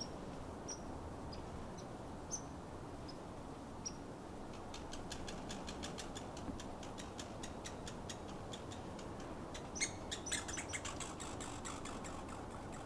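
Faint woodland ambience with short high chirps about once a second, then a long run of rapid sharp ticking calls, about four a second, with a louder flurry about ten seconds in.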